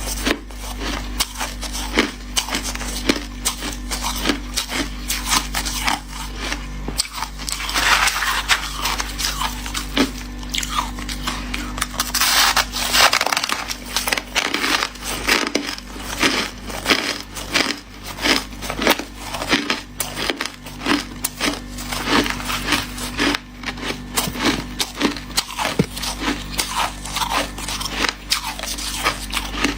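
Hard shaved ice and crushed ice being bitten and chewed close to the microphone: a dense run of crunchy, squeaky crackles, with louder big bites about eight and twelve seconds in.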